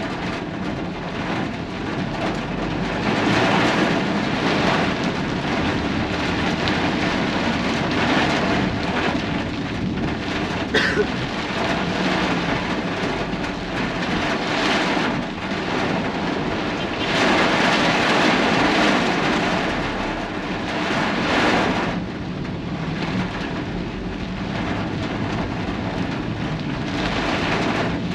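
Rain and gusting wind mixed with the hiss of traffic on a wet road, the noise swelling and fading every few seconds. A single sharp click comes about eleven seconds in.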